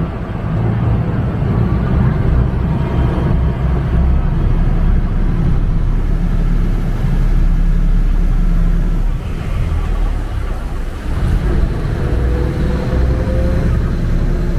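Tour boat's engine running under way, a steady loud low rumble with water noise, easing briefly about nine seconds in.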